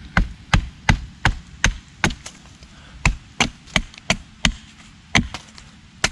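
Hatchet chopping at a wooden stick laid against a stump, about three sharp strikes a second with a brief pause partway through.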